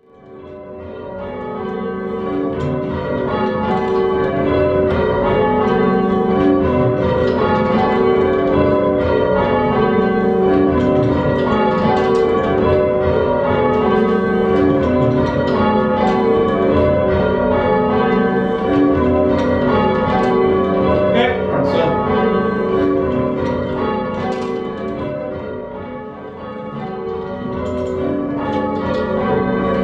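A ring of five church bells being rung full-circle in changes, the bells striking one after another in a continuous rhythm with long overlapping hum. The ringing fades in from silence over the first few seconds.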